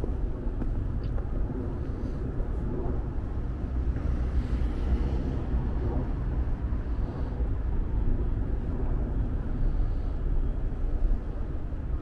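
Steady low rumble of road traffic in a city street.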